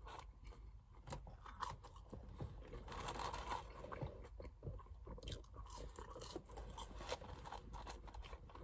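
A person chewing a mouthful of fast food, faint, with many small irregular clicks.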